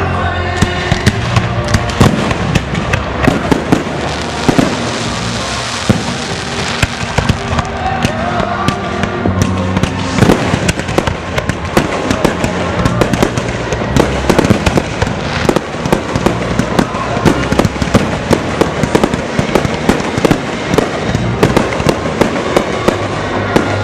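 Fireworks exploding in a dense, continuous barrage: rapid bangs and crackling reports, many a second, with music playing underneath.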